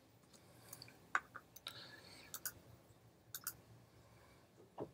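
A handful of scattered, separate computer keyboard and mouse clicks, the loudest about a second in, over faint room noise.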